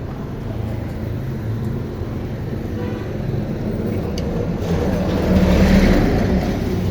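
Road traffic running steadily, with a vehicle passing close by and growing louder about five seconds in before easing off.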